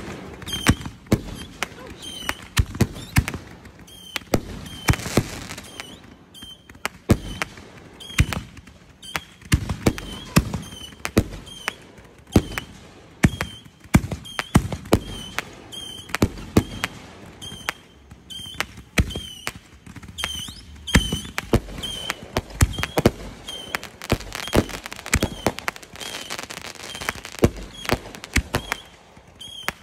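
Fireworks going off: an irregular, continuous string of sharp bangs and pops from aerial shots bursting overhead, several a second at times.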